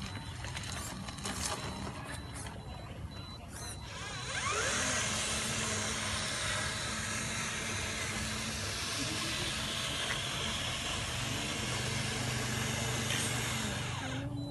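Small electric motor and gearbox of a radio-controlled toy truck whirring as it drives through mud puddles. A few clicks come first, then a louder steady hiss sets in about four seconds in.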